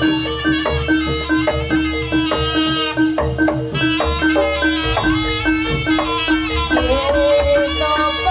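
Live jaranan gamelan music: metal-keyed percussion plays a fast interlocking pattern over a steady repeating note, with drums underneath. The drumming gets busier about five seconds in.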